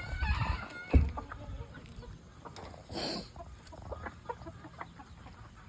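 Chickens clucking in short calls, with scattered clicks and a sharp thump about a second in.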